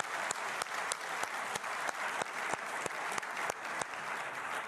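Large seated audience applauding steadily, a dense patter of many hands clapping.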